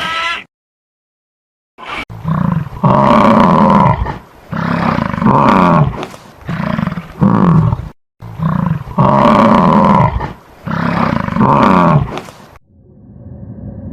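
A large animal roaring in a string of loud, deep calls, about eight in ten seconds, many falling in pitch. A short call comes right at the start, and a different steady hum sets in near the end.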